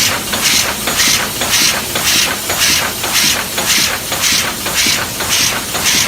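Sacma SP25U four-die, four-blow cold header running, with an even beat of hissing strokes at about two a second, in step with its forming cycle.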